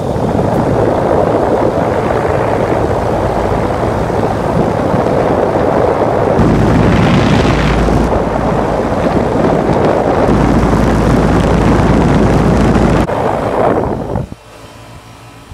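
York LX central air conditioner condensing unit running just after its first startup of the season: a loud, steady rush of air from the condenser fan, which has a Genteq motor, with the low hum of the Bristol reciprocating compressor underneath, in normal working order. The rush drops sharply about 14 seconds in.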